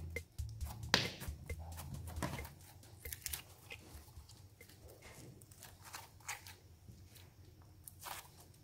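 Hands squeezing, pressing and stretching soft fluffy slime, giving scattered wet clicks and small crackling squishes.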